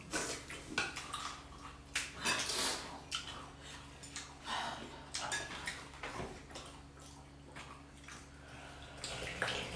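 People slurping chicken thukpa, a noodle soup, in short irregular slurps, with spoons clicking against ceramic bowls now and then; the slurps come thickest in the first three seconds.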